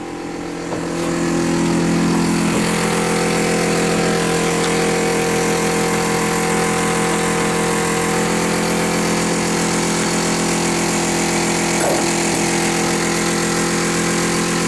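RV water pump motor running steadily, a hum that builds over the first couple of seconds after it is switched on and then holds even, as it pressurises the water line to a newly reinstalled Thetford toilet.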